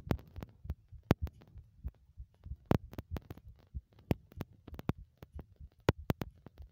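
A heartbeat: repeated dull, low thumps, with frequent irregular sharp clicks on top of them.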